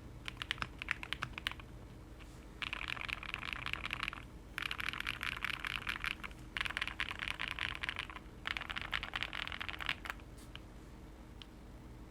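Custom mechanical keyboard with lubed OwLab Tungsten switches, a polycarbonate plate and PBT keycaps being typed on: separate keystrokes at first, then four bursts of very fast typing of about a second and a half each. The typing stops about ten seconds in, with only a couple of faint clicks after.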